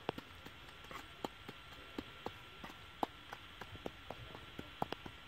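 Faint, irregular sharp clicks and taps, a few a second, over a steady background hiss.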